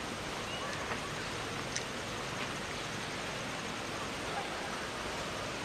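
Steady rushing outdoor background noise with a few faint ticks.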